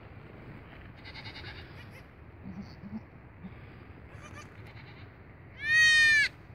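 Newborn goat kid bleating: faint, weak calls in the first half, then one loud high-pitched bleat near the end that dips slightly in pitch as it ends.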